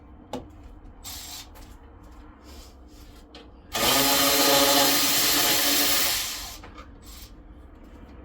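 A handheld power tool, drill-type, running at a steady speed in one burst of about three seconds that starts a little before halfway through. Light clinks and rattles of tools and parts come before it.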